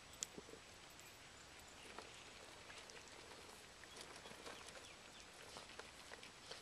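Near silence with faint scattered clicks and rustles: a terrier chewing on an asparagus stalk.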